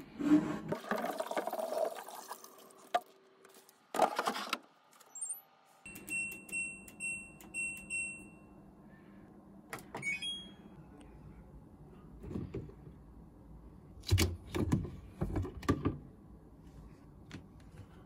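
LG TROMM heat pump dryer being handled: its plastic water container slides in with a rub and a clunk, then the control panel plays a short run of about five electronic beeps and, a couple of seconds later, one higher beep as the start button is pressed. Near the end come several plastic knocks and clicks as the door and lint filter are opened.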